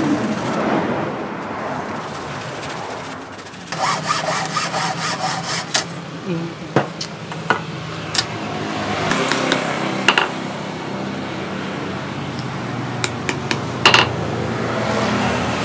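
Sandpaper rubbing on a small turned wooden handle in quick back-and-forth strokes, with scraping and clicks as the wood is worked by hand, then a few sharp hammer taps on a steel anvil near the end.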